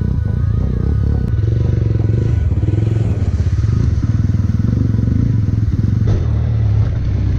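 Mahindra Mojo motorcycle engine running at steady revs, its close, even exhaust pulsing loud in the microphone.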